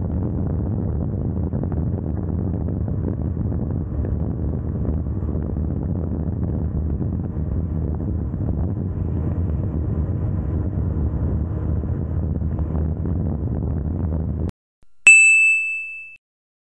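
Muffled, steady wind rush and engine noise of a KTM Duke 390 motorcycle ridden flat out at high speed. It cuts off suddenly near the end, followed by a single bright ding chime that rings briefly and fades.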